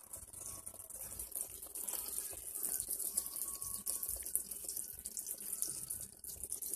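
Hot oil sizzling around two rounds of dough frying in a skillet: a steady high hiss with many fine crackles.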